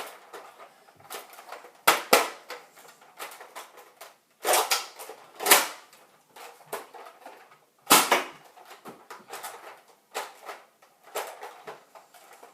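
Plastic clicks and clacks of a Nerf blaster being reloaded, primed and fired: a run of small ticks broken by a few louder, sharp clacks.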